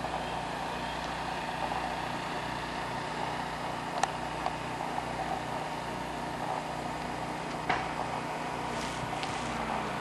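A steady mechanical drone with an even hum and hiss, broken by a sharp click about four seconds in and another just before eight seconds.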